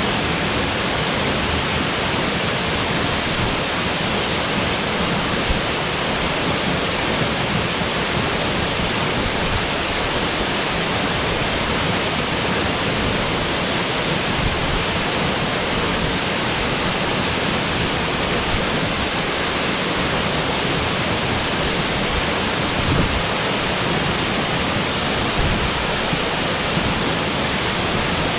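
Waterfall on a mountain gorge river, falling water making a loud, steady rushing noise that stays even throughout.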